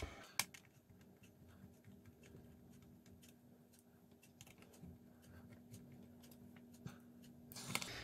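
Faint, scattered small clicks and ticks of a Phillips screwdriver turning screws into a laptop's metal hinge bracket, with a faint steady hum underneath.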